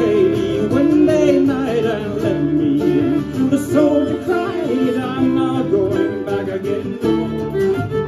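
Acoustic guitar strummed and fiddle bowed together in an instrumental passage of a live folk song.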